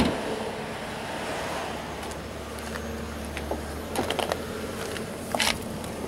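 A Ford Taurus engine idling as a low steady hum, with a cluster of light clicks and knocks about four seconds in and a couple more about a second later.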